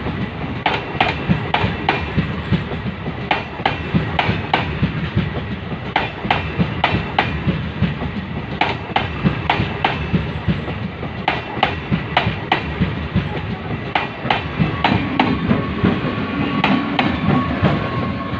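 Indian Railways MEMU electric multiple unit passing close by at speed: a steady rumble of wheels on rail, with sharp clickety-clack from the wheelsets striking rail joints in quick groups about once a second. It eases a little near the end.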